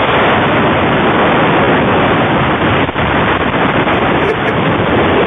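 Loud steady hiss of white noise coming through a telephone line, stopping abruptly at the end.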